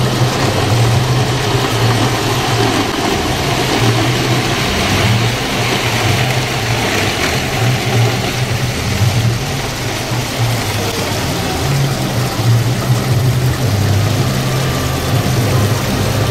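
Model trains running on a garden layout: a steady motor hum that wavers, with a hiss of running noise above it.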